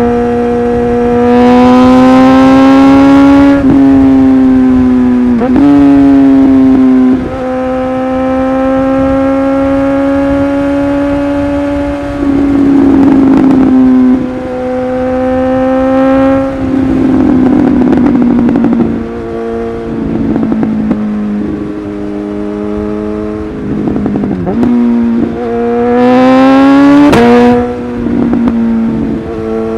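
Suzuki GSX-S1000's inline-four engine through an aftermarket LeoVince exhaust, running hard under load; the engine note climbs and then drops sharply at each quickshifter gear change, several times over. At two points the throttle closes and the exhaust crackles and pops.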